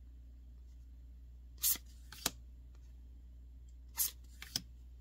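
Trading cards being flipped and laid down one by one onto a playmat: a few brief papery swishes with sharp taps, twice about two seconds in and again around four seconds in, over a steady low hum.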